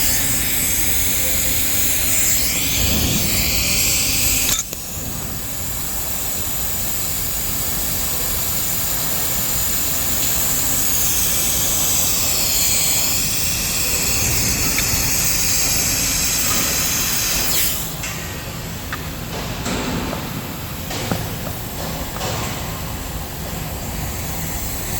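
Welding arc hissing and crackling steadily, with abrupt changes in the sound about 5 and 18 seconds in.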